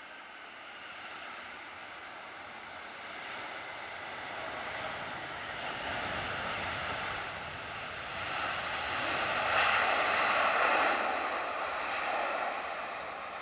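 Airbus A321's jet engines during the landing rollout. The rushing roar builds to its loudest about ten seconds in, then eases near the end.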